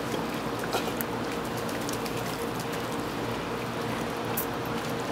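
Pool water sloshing and splashing as golden retrievers paddle through it, with brief sharper splashes about a second in and near the end, over a steady low hum.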